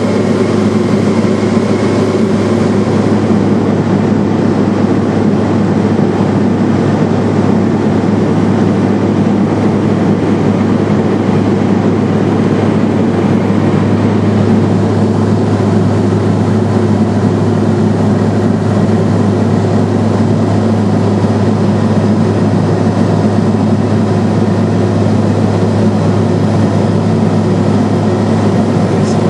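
Steady drone of a Cessna Silver Eagle's turboprop engine and propeller in flight, heard inside the cabin: a constant low hum under an even rushing noise, with no change in power.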